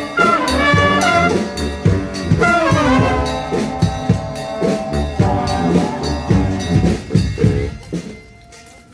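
Street brass band playing as it marches: trumpets and trombones over a steady drum beat. The music grows quieter near the end.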